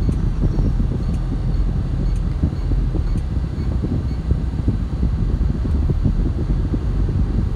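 Steady low rumble of road and engine noise inside a moving car's cabin, with a faint high tick about once a second.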